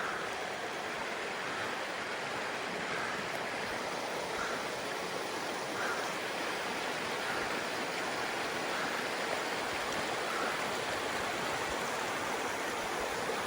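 Mountain creek rushing steadily.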